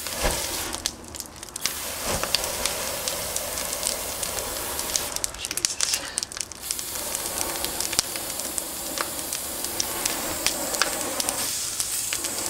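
Large open fire burning with a steady rushing hiss and frequent sharp crackles, with a couple of dull thuds just after the start and about two seconds in.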